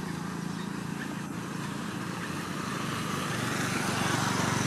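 Motor vehicle engine running steadily, growing louder near the end.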